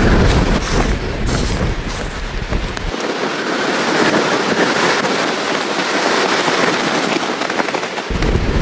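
Storm wind buffeting a tent: loud rushing and rapid crackling of flapping fabric, with wind rumble on the microphone. The deep rumble cuts out abruptly about three seconds in and returns near the end.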